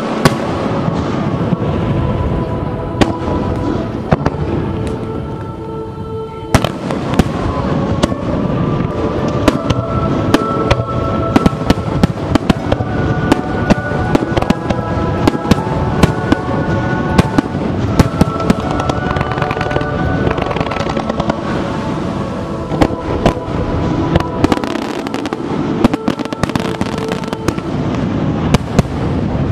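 Fireworks display: aerial shells bursting in rapid, dense succession, many sharp bangs overlapping, over music with long held notes. The bangs ease briefly about six seconds in, then start again abruptly.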